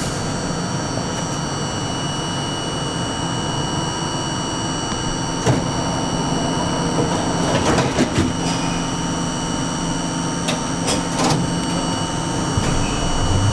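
R42 subway car standing at a station platform, its onboard equipment giving a steady low hum and several steady high whines. A few sharp clicks and knocks come in the middle part.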